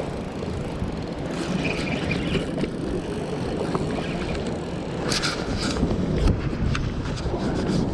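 Wind buffeting the microphone as a steady low rumble. A jacket sleeve brushes against the camera and gives short scratchy rustles, a cluster of them a little past the middle.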